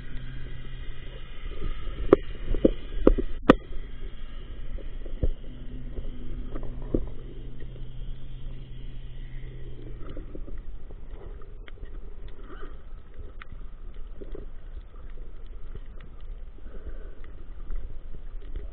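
Muffled underwater sound picked up by a submerged camera: a low churning rumble with a steady hum that stops about ten seconds in, and a few sharp knocks a couple of seconds in.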